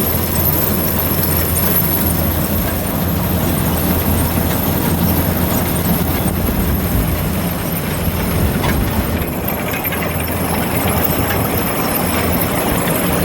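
Heavy harvest machinery engine running steadily: a constant low drone with a faint high steady whine above it.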